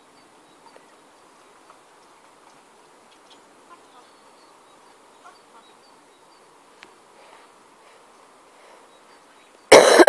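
Faint outdoor background hiss with a few soft ticks. Near the end comes a loud, harsh burst of noise on the microphone, about half a second long, from the recording device being jolted or buffeted.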